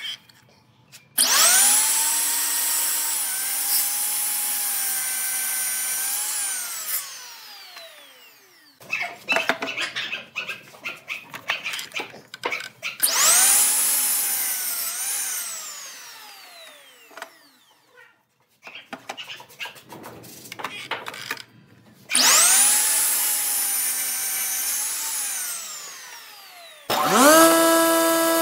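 Electric miter saw making three cuts through a glued-up wooden block: each time the motor spins up with a rising whine, drops a little in pitch while the blade is in the wood, then winds down slowly once released. Between cuts there are knocks and clatter of the block being moved. Near the end a table saw starts up with a steady hum.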